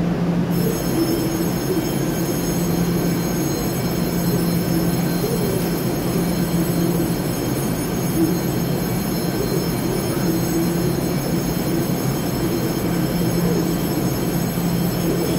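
Steady hum of an electric multiple-unit express train standing at an underground station platform. A set of high-pitched electrical whines comes in about half a second in and holds steady.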